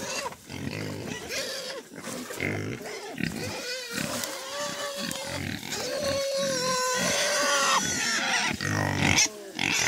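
Pigs grunting and squealing around the feeding trough, with several drawn-out squeals about halfway through.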